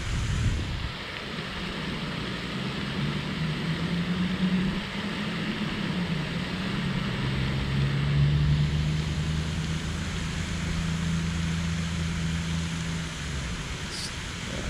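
A low engine drone with a slowly shifting pitch, over a steady rushing noise; the drone fades out near the end.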